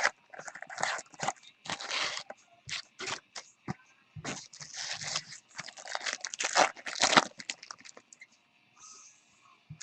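Crinkling, crackling and tearing of trading-card pack packaging being opened by hand, with rustling of handled cards. It is busy and irregular and dies down about two seconds before the end.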